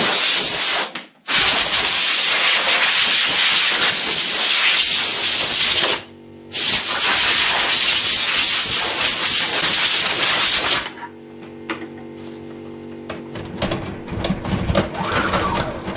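Compressed-air blow gun fed from a hose reel, hissing in long blasts: short breaks about a second in and about six seconds in, then it stops about eleven seconds in. After that a quieter steady hum with light knocks and rustling.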